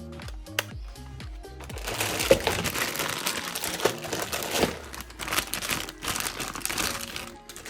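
Crinkly packaging rustling and crackling as it is handled and unwrapped, starting about two seconds in and lasting about five seconds, louder than the background music.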